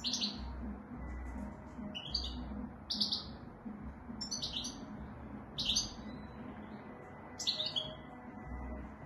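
Goldfinch singing in short, separate bursts of high twittering notes, about six in nine seconds, with pauses between them.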